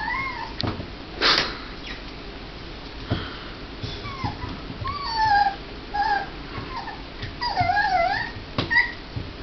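Puppy whimpering over a piece of chicken: short, high, wavering whines, a few near the start and a run of them in the second half, with a few sharp clicks between.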